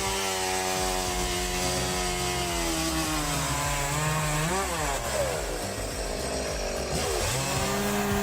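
Small two-stroke chainsaw engine running while cutting wood. Its pitch sags under load about three seconds in, rises and falls over the next few seconds, then climbs back and holds steady near the end.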